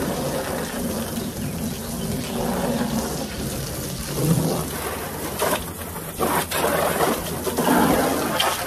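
Garden hose spray nozzle jetting water into a black plastic tote, the spray hissing and splattering on the plastic. It swells and eases as the stream moves around the tub, loudest about four seconds in and near the end.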